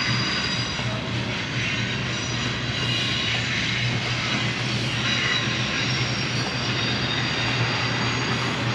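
Steady low drone of a freight train's diesel locomotives running nearby, an unbroken engine hum.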